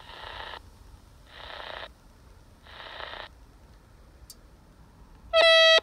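RadioShack TRC-241 handheld CB radio on channel 19 letting three half-second bursts of static hiss through its speaker, about 1.3 s apart, as the squelch opens and shuts. Near the end comes a short, loud, steady electronic beep.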